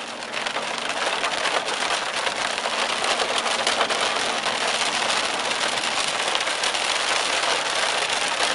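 Heavy rain hitting the car's roof and windows, heard from inside the car as a dense, steady patter that grows louder just after the start.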